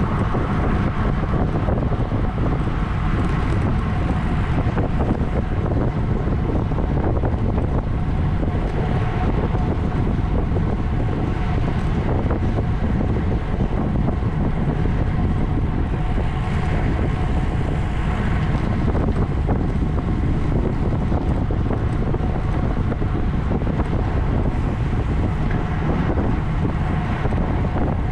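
Steady wind noise rushing and buffeting over the microphone of a camera on a racing bicycle ridden at race speed, heaviest in the low rumble.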